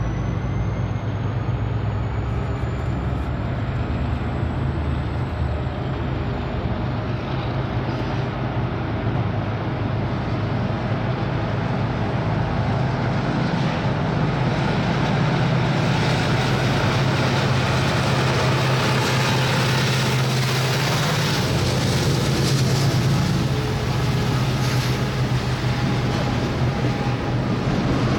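Union Pacific diesel-electric locomotives pulling a heavy double-stack container train away from a stop, their engines working under load with a steady low drone that grows louder as they pass close by about halfway through. A faint high whine rises and fades in the first few seconds. Near the end the container cars roll past.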